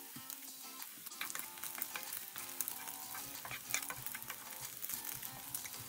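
Beef cubes sizzling and crackling as they fry in a little oil in a stone-coated frying pan, browning for derek tibs, while a wooden spoon stirs them.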